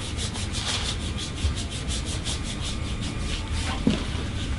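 Hands rubbing briskly along the back of a thigh during a hamstring massage, a quick swishing of palm on skin at about five or six strokes a second that fades out near the end.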